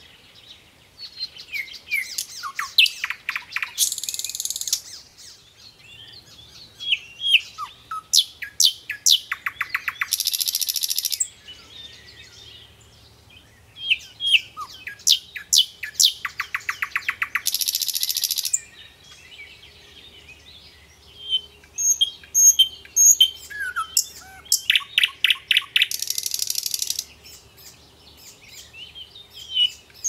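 A songbird singing the same phrase four times: a run of sharp chirps and a fast trill, each ending in a harsh buzzy note about a second long.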